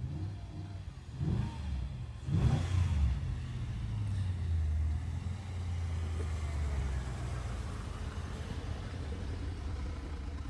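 Mercedes-Benz W211 E500's V8 engine revving in two quick blips in the first three seconds, then running on with a steady low drone.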